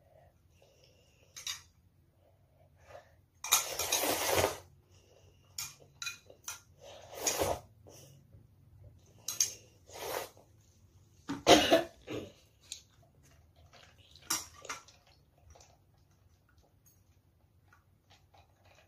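A child eating instant ramen, slurping noodles and broth in irregular bursts. The longest slurp comes about four seconds in and a sharp loud one comes past the middle, with light clinks of chopsticks against bowls between them.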